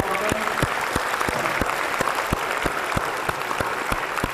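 Lecture-hall audience applauding in a steady round of clapping, with one clapper's sharper claps standing out about three times a second.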